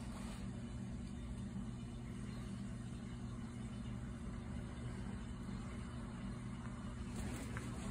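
A steady low mechanical hum with a faint hiss over it.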